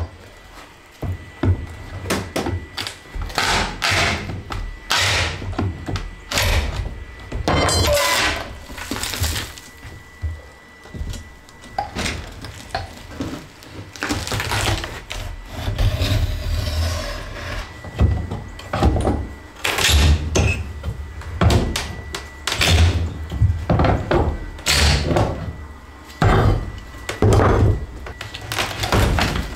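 Rotted floor sheathing being pried up and broken out by hand: irregular cracks, knocks and thunks of wood.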